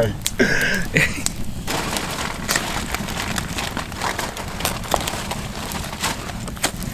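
Wood campfire crackling, with sharp snaps and pops coming irregularly over a low steady rumble of the flames.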